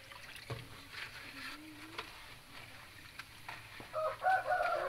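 Hot oil sizzling in a wok as battered chicken skin is lowered in from a metal strainer, with a few light clinks of the utensils. About four seconds in a loud animal call cuts across it.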